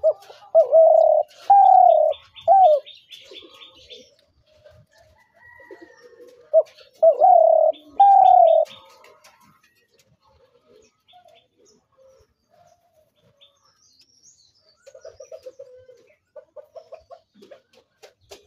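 Spotted dove cooing: two phrases of several deep coos, about six seconds apart.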